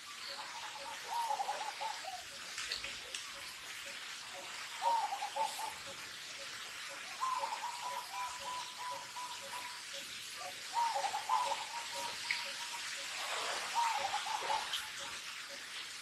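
Birds calling: wavering whistled phrases, one held steady for about two seconds, over a steady run of soft low hoots about twice a second and a constant hiss.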